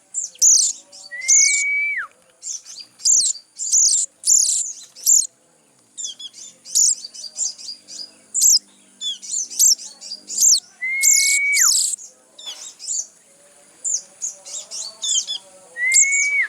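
Young sogon birds giving rapid, high, squeaky chirps, the begging calls of chicks being hand-fed. Three times a longer clear note rises slightly, holds, then drops away sharply.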